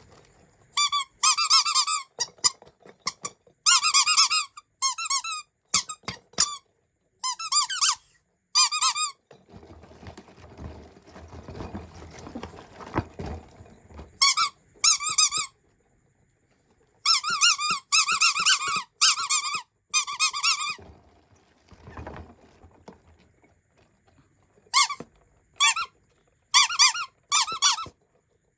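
Cat-shaped rubber squeeze toy squeaking again and again as it is pressed, each squeak a short high-pitched squeal with a wobbling pitch, in quick groups. Low handling noise comes between groups, most clearly in the middle.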